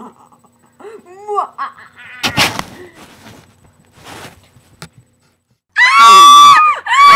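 High-pitched human screaming, very loud, starting about six seconds in, breaking off briefly and starting again. Before it come faint squeaky vocal noises and two breathy gasps.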